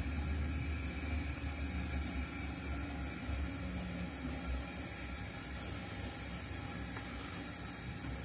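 0 gauge model locomotive running along the track: a low rumble that fades after about four seconds, over a steady hiss.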